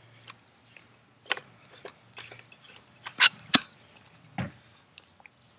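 Scattered clicks and knocks of a CO2 tank being handled and screwed into a paintball gun, the loudest a few sharp knocks about three to four and a half seconds in.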